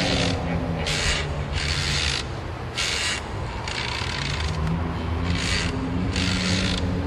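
Mechanical rasping or ratcheting sound effect, repeating in pairs (a short stroke then a longer one) about every two and a half seconds over a low steady hum.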